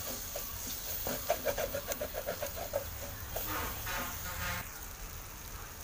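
An animal calling in a quick run of short notes, about nine a second, then a longer rattling call, over the steady sizzle of onion-tomato masala frying in a pan as it is stirred.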